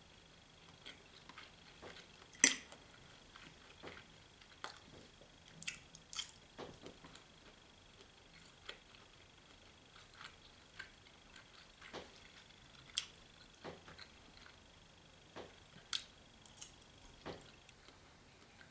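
Close-up eating sounds: scattered wet mouth clicks and smacks of chewing at an irregular pace, with one sharper click about two and a half seconds in. A faint steady high whine runs underneath.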